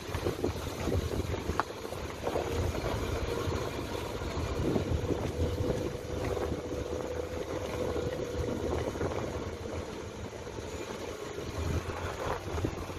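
Car driving, with a steady low road rumble and wind noise on the microphone.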